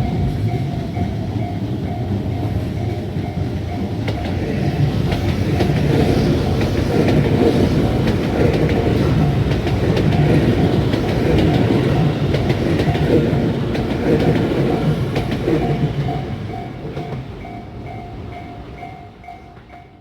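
Tobu Skytree Line electric train passing a level crossing, its wheels clattering on the rails; it builds to its loudest in the middle and fades near the end. The crossing's warning bell rings in an even, repeating ding throughout.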